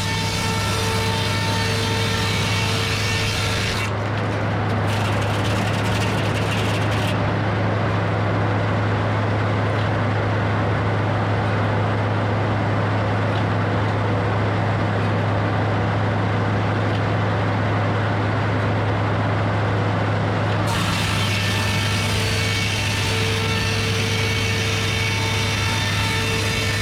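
Edmiston hydraulic sawmill running with a steady low engine hum. About four seconds in, the saw's whine gives way to a denser rushing as the blade cuts through the wood, until about twenty-one seconds in, when the free-running whine returns.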